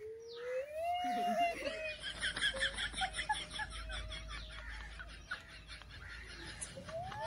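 Women laughing, with a run of quick, even bursts of laughter in the middle.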